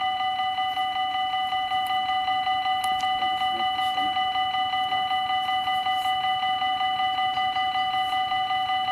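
Electronic warning bells of a Dutch mini AHOB level crossing, ringing in rapid, even strokes with a bright ringing tone while the crossing is closed for an approaching train.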